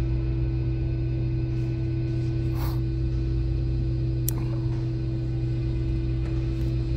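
A steady low hum, with a brief rustle near three seconds and a single sharp click a little after four seconds as the Baofeng AR-5RM handheld radio's power/volume knob is switched on.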